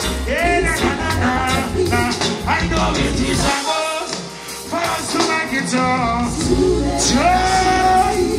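Live reggae band playing with a male singer singing over heavy bass; the bass drops out for about a second midway, then comes back in.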